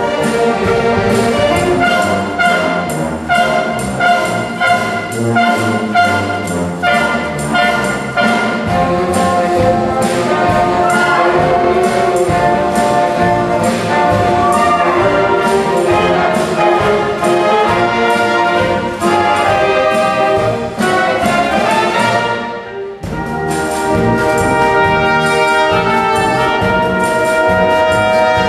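A youth wind orchestra playing a concert piece: brass, saxophones and flutes together in sustained chords. About three-quarters of the way through the sound thins and dips briefly before the full band comes back in.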